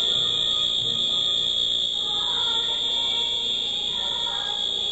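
Fire alarm sounding one continuous, unbroken high-pitched tone, with faint voices of people underneath.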